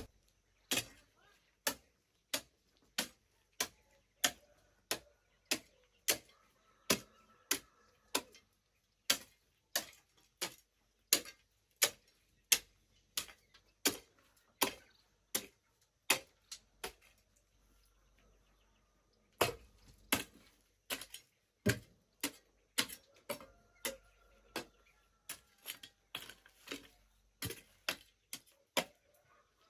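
Repeated sharp strikes of a hand tool, about one and a half a second in a steady working rhythm, with a short pause a little past the middle.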